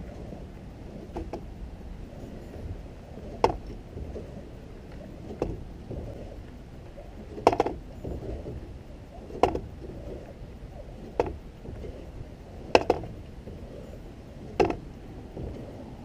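A series of sharp knocks on a kayak, about every two seconds, over a low steady rumble.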